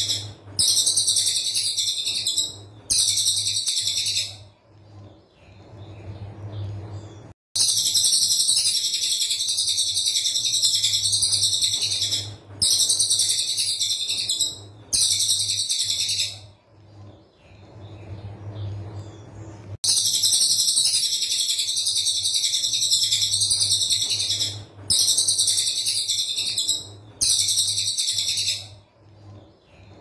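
Cililin coklat songbird singing dense, rapid, high-pitched rattling phrases in runs of a few seconds broken by short pauses, the tight 'tembakan rapat' song used as a master recording for training other songbirds. A low steady hum lies underneath.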